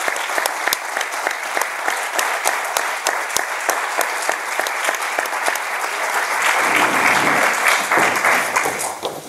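Audience applauding, swelling louder about two-thirds of the way through and dying away at the very end.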